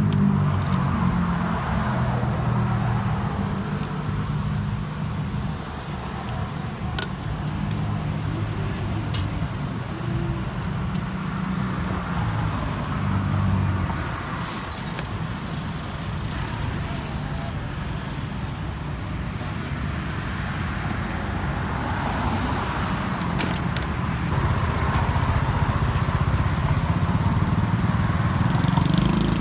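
Road traffic: car engines running and passing close by, the engine hum swelling again near the end, with a few sharp light clicks.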